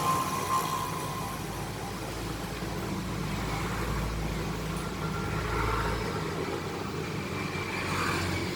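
Steady background rumble of road traffic, deeper for the first few seconds.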